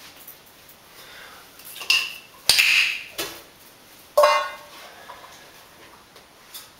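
Several sharp knocks and clatters on a hard tiled floor, the loudest about two and a half and four seconds in; the one at four seconds rings briefly, like a metal dish, as it dies away.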